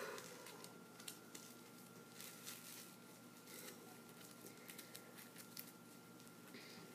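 Near silence with faint rustles and small clicks from a jump rope being handled and knotted around bare feet, over a thin steady high tone.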